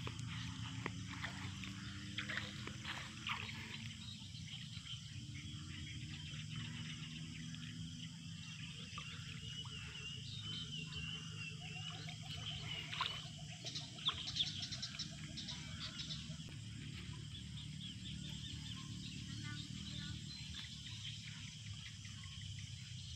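Bare feet splashing and sloshing through shallow water and wet grass, with faint bird calls warbling in the background around the middle.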